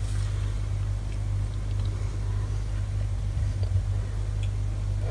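A steady low background rumble, unbroken and even, with a few faint ticks.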